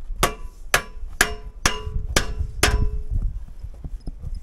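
A hammer striking metal six times, about two blows a second, each blow ringing briefly.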